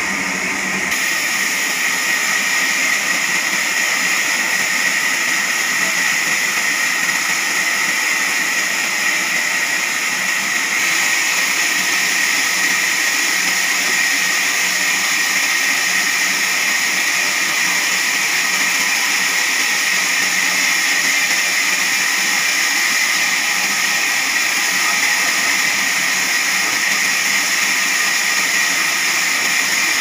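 Large sawmill band saw running, its blade cutting through a big squared hardwood log with a steady, unbroken whining hiss.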